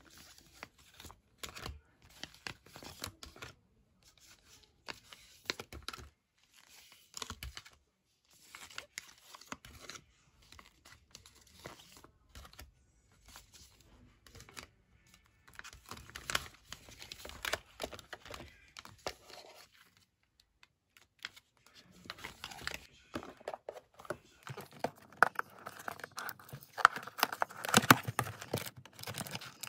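Plastic sheet-mask sachets crinkling and rustling as they are handled and shuffled, in irregular crackles that grow busier and louder in the last several seconds as a paper box of masks is handled.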